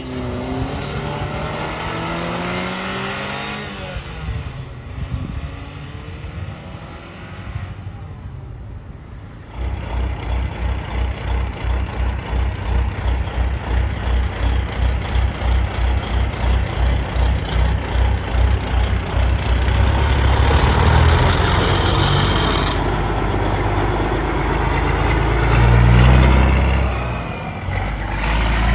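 A small mini-truck engine revs past at the start. Then a semi truck's big diesel engine sets in with a strong, evenly pulsing low exhaust rumble that grows louder, rising in pitch as the truck accelerates past near the end.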